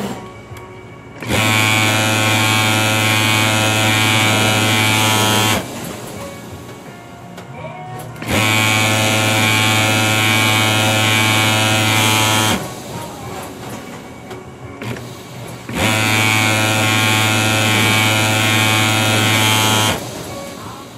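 Pegasus industrial overlock sewing machine running at speed in three bursts of about four seconds each, a steady high hum that starts and stops sharply, pausing between seams.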